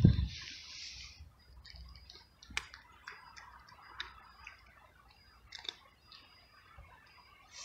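A cat crunching dry kibble: quiet, irregular sharp crunches about a second apart.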